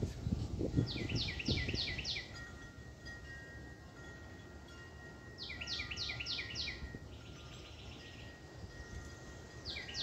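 A songbird sings three phrases, each a quick run of five or six downslurred whistles, while a wind chime's faint steady tones ring underneath. Low rumbling noise fills the first two seconds.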